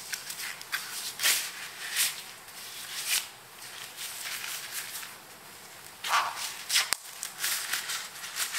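Disposable gloves rustling as they are peeled off the hands, then a thin plastic bag crinkling as they are stuffed into it near the end: irregular short rustles and crinkles.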